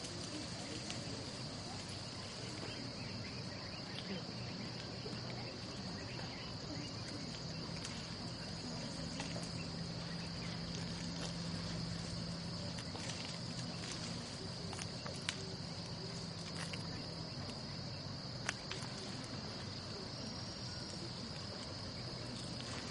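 Insects calling in a steady, high-pitched drone. A faint low hum lasts for several seconds in the middle, and two sharp clicks come about three seconds apart later on.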